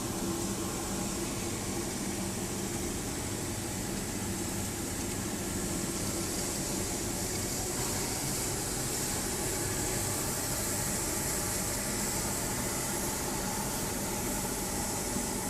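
Biomass-fired aluminium melting furnace running, its air blower and fire making a steady rushing noise with a low hum.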